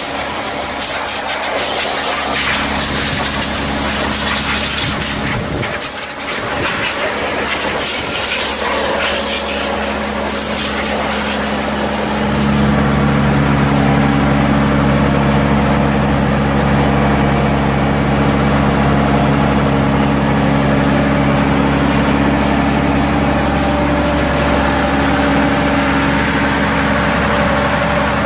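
Diesel engine of a Tamrock Ranger 500 hydraulic crawler rock drill running steadily, with a strong hiss of air blowing out, kicking up dust, over roughly the first ten seconds. About twelve seconds in the engine becomes louder and fuller and then holds steady.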